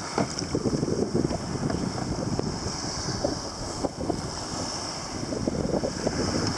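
Wind buffeting the microphone over water sloshing and splashing against a Hobie Pro Angler 14 kayak's hull as a wave comes through. A steady faint high hiss runs underneath.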